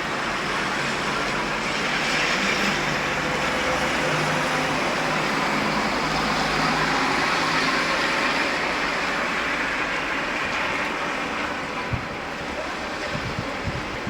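Steady rain with a vehicle driving past on the wet road; its tyre hiss swells over a few seconds and then fades.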